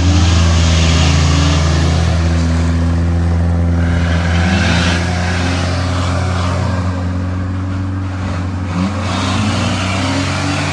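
Off-road 4x4 engine running hard, its revs rising and falling several times under load.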